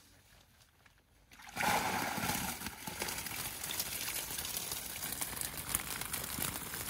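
Water splashing and streaming, starting suddenly about a second and a half in and going on steadily with small crackles.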